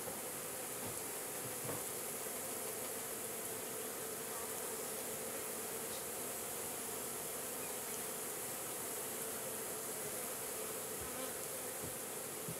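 Honey bees buzzing in a steady, unbroken drone.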